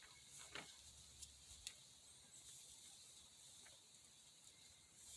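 Near silence: faint room tone, with a few faint, short clicks in the first two seconds.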